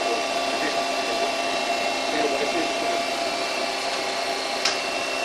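Steady machine hum with several held tones from the CNC lathe and machine-shop equipment, its spindle stopped. One short click comes about four and a half seconds in.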